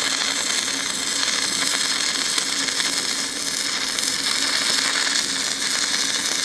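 Stick-welding arc burning steadily on a 7024 high-deposition electrode as a fillet bead is laid with a slight weave: a continuous, even hiss.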